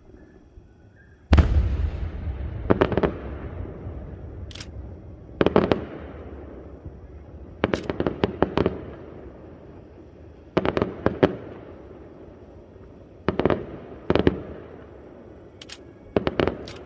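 Aerial firework shells bursting. A heavy boom comes about a second in, then clusters of sharp cracks and bangs every two to three seconds, each fading away in a rolling echo.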